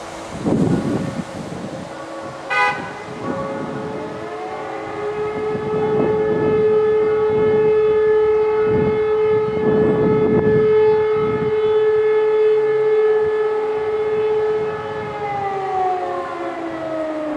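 Several Type E57 civil-defence sirens spin up, hold a steady wail for about ten seconds, and wind down in a falling glide near the end. This is one tone of the German fire-alarm signal (Feueralarm). Wind gusts buffet the microphone, and there is a short sharp knock about two and a half seconds in.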